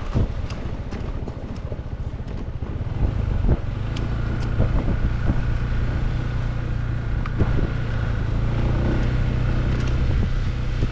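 Motor vehicle engine running under way, with wind buffeting the microphone; the engine settles into a steady hum about three and a half seconds in.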